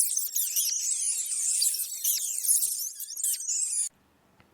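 Rats squeaking: a dense run of many rapid, high-pitched squeaks that cuts off suddenly near the end.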